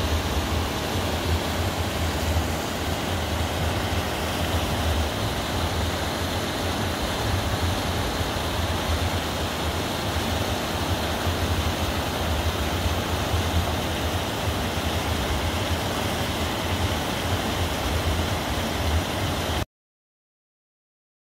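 Mountain stream rushing and splashing down a small cascade over rocks: a steady white-water rush with a low rumble underneath. It cuts off suddenly near the end.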